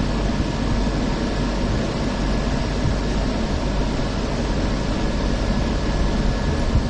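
Steady rumble and hiss heard inside a fifth-generation Hong Kong Peak Tram funicular car, with a faint steady high tone throughout.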